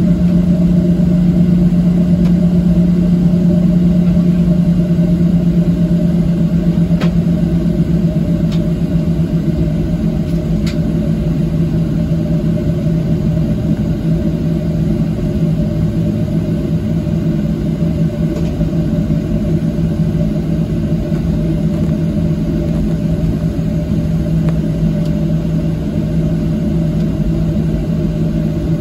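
Steady cabin drone inside a Boeing 737-700 airliner moving off the gate: a constant low hum with a steady tone over a rumble, and a few faint clicks in the middle.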